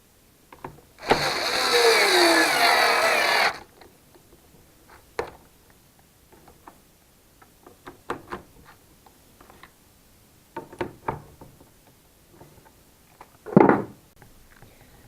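Makita EA3203S two-stroke chainsaw pull-started with its newly fitted starter ratchet: the engine runs for about two and a half seconds, dropping in pitch, and cuts off abruptly. Scattered clicks and knocks of handling follow, and there is one short, loud burst near the end.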